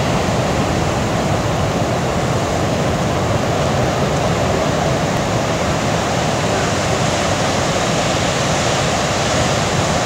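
Heavy ocean surf breaking on a reef: a loud, steady rush of white water with no let-up.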